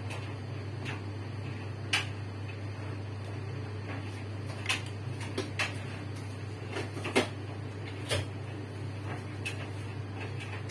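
Scattered sharp clicks and light knocks of kitchen handling, the loudest about two seconds in and again about seven seconds in, over a steady low hum.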